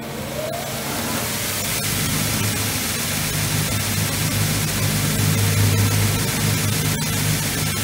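Robotic belt grinding: an abrasive belt runs over its contact wheel while a KUKA KR 30 robot presses a workpiece against it, giving a steady harsh hiss over a low motor hum. The noise builds up over about the first second, then holds steady.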